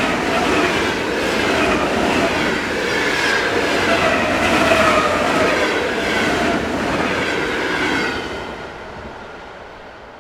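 ED4 electric multiple unit passing close by: wheels rumbling on the rails with a motor whine over regular knocks. The sound dies away about eight seconds in as the train moves off.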